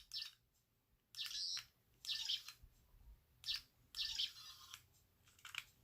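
A small bird chirping faintly in the background: a handful of short, high chirps with pauses between them.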